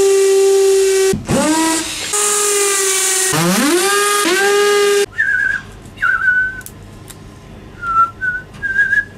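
A loud, reedy whistle-like tone with a hiss over it for about five seconds. It is held steady, dips low and climbs back about a second in, and glides up again near the middle before it cuts off. Then comes faint whistling of a tune, in short wavering notes, with a few light clicks.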